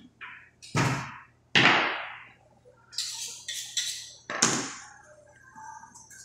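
Butchering work on a hanging beef carcass: three heavy thuds, about a second in, half a second later and again a little past the middle, with short quick scraping sounds between them.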